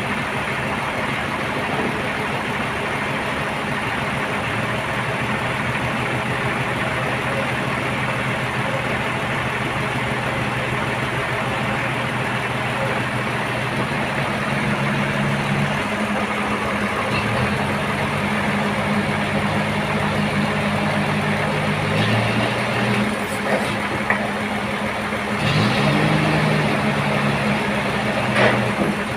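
An engine running steadily, its pitch shifting up and down a few times, with a few sharp knocks near the end.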